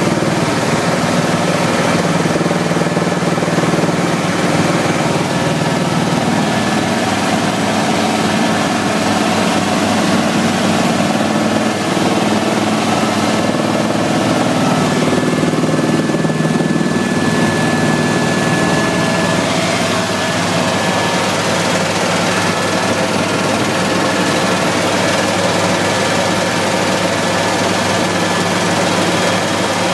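Helicopter engine and rotor running steadily in flight, a loud continuous drone with a fast low pulsing, heard from inside the cabin.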